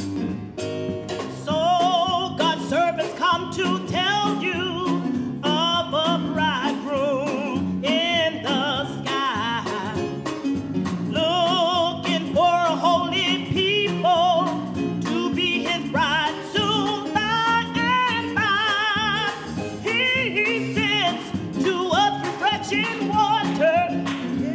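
Gospel song: a solo singer with a strong vibrato on held notes over piano or keyboard accompaniment, the voice coming in about a second and a half in after a short instrumental start.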